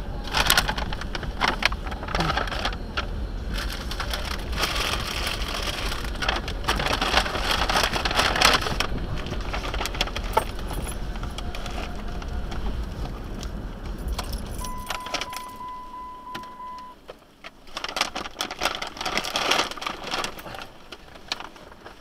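Car cabin with the engine's low rumble and bursts of clattering and jangling. The rumble stops about two-thirds of the way in as the engine is switched off. A steady beep follows for about two seconds, then more jangling and clattering.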